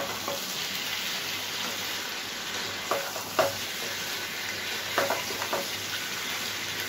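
Chicken pieces with onion and tomato sizzling in hot oil in a nonstick frying pan, stirred with a plastic spatula that scrapes against the pan a few times, around three and five seconds in.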